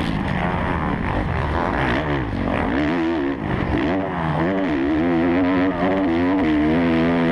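Motocross bike's engine close to the microphone, revving up and down over and over as the throttle is worked and gears change, with a brief drop about three and a half seconds in.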